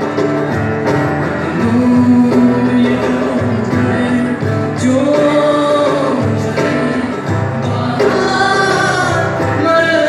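Live band performance: guitars playing with a singer's voice carrying a sung melody over them, with long wavering held notes about halfway through and again near the end.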